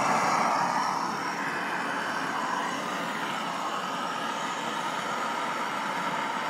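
Hand-held 3500 °F gas torch burning with a steady rushing hiss as its flame plays on a bare light-gauge metal stud. It is a little louder in the first second, then holds steady.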